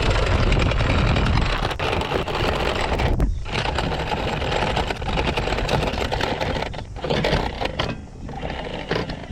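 Boat's anchor windlass running, the anchor chain clattering over the gypsy in a dense run of clicks. It stops briefly about three seconds in, then goes on less steadily.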